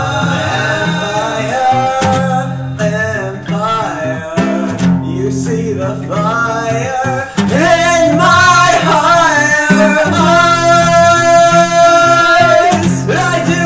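Acoustic guitar strummed, with a man singing over it; about ten seconds in the voice holds one long note for a couple of seconds.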